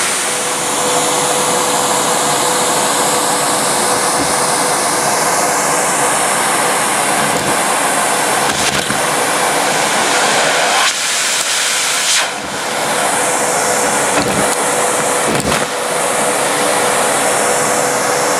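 Numatic James tub vacuum cleaner running with a steady motor whine as it sucks up dirt. The suction sound shifts a few times, with a handful of brief knocks as debris goes up the hose.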